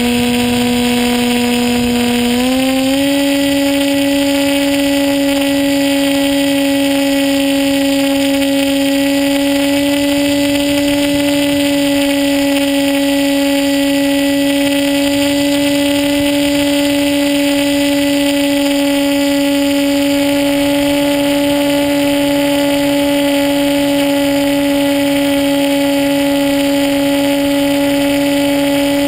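A radio-controlled plane's motor and propeller drone steadily in flight, heard from an onboard camera, with wind noise over the microphone. The pitch steps up slightly about three seconds in as the throttle is opened, then holds.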